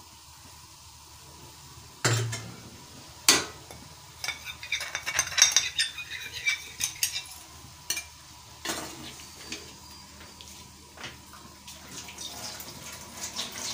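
Steel spoon scraping and tapping ground red chili off a plate into a metal cooking pot of dal and meat. There are two sharp knocks, then a run of quick scrapes and clinks, then a few scattered taps.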